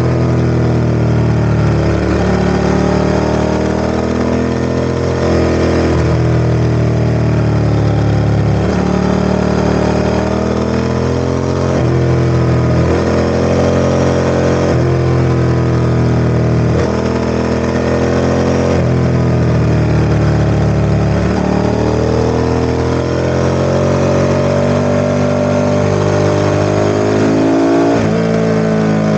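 Ducati ST4S motorcycle's V-twin engine running under varying throttle. Its note climbs gradually, then drops back, about every two to three seconds.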